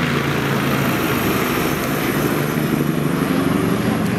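Helicopter flying overhead, its rotor beating in a fast, steady flutter over a continuous engine drone.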